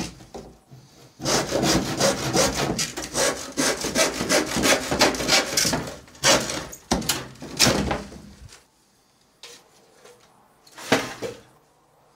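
Handsaw cutting through a thin wooden sheet in quick back-and-forth strokes, with a short pause about half a second in and the sawing stopping about eight seconds in. A single knock near the end.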